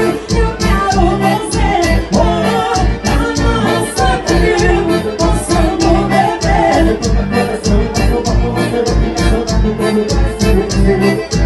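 Live band playing loud amplified music with a singer's voice over a steady, heavy bass beat.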